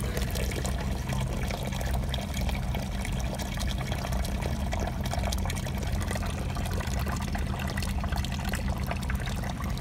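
A thin stream of milky brown fluid drains from an ATV's engine drain hole and pours steadily into a nearly full foil pan, trickling and splashing on the liquid's surface. The fluid is engine oil laden with water, drained after the engine took on water. A steady low rumble runs underneath.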